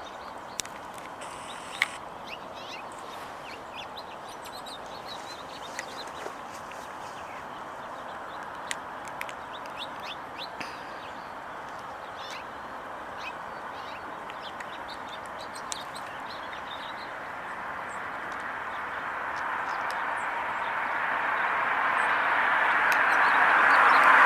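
Small birds chirping here and there over a steady outdoor background hiss. A rushing noise builds up steadily over the last several seconds and becomes the loudest sound.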